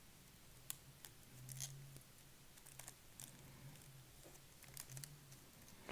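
Near silence, with a few faint clicks and light rustles of trading cards and packaging being handled.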